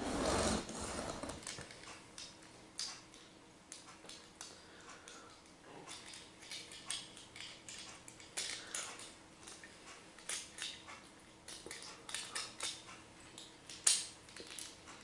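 Irregular light clicks and clinks of small hard objects being handled, with a short rustle at the start and a sharper click near the end.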